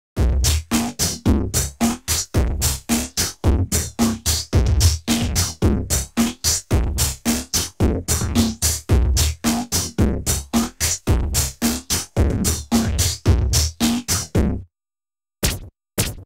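Electronic music: a rapid, choppy drum-machine pattern of short hits with deep bass, about four a second. It cuts off suddenly about fifteen seconds in, and two short stabs follow.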